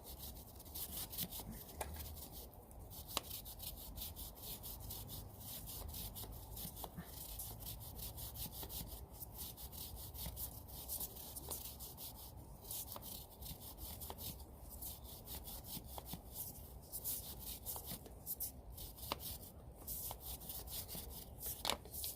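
Stiff brush scrubbing a motorcycle drive chain soaked in chain degreaser: rapid back-and-forth scratchy strokes with a few short pauses, loosening the grime stuck between the links.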